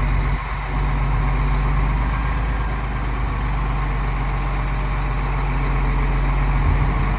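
Heavy vehicle engine idling steadily while it lifts a jet ride car off the ride, with a brief dip about half a second in.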